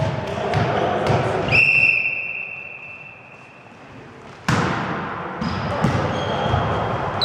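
A volleyball referee's whistle blown once about a second and a half in: a single shrill steady tone lasting about a second, the signal authorising the serve. About three seconds later comes the loud smack of the volleyball being struck on the serve, ringing out in the sports hall.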